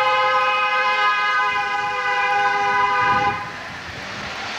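A vehicle horn held in one long steady blast at a single unchanging pitch, cutting off about three seconds in. Lower street noise follows.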